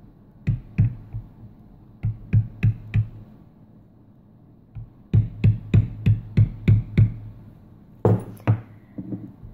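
Poly mallet striking a metal backgrounding stamp on damp tooling leather laid on a stone slab. The sharp taps come in short runs at about three a second, feathering the background along the carved outline. Two louder knocks come near the end.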